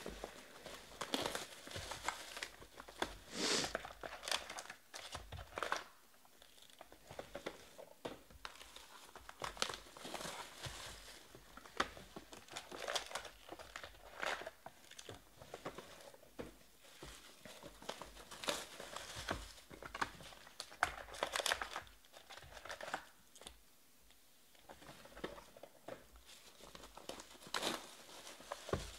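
Foil-wrapped Panini Prizm Draft Picks trading card packs crinkling as hands pull them from the box and shuffle them, in an irregular run of short crackly rustles.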